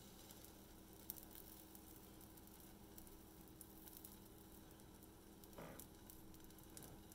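Faint sizzling of banana pancake batter frying in a nonstick skillet.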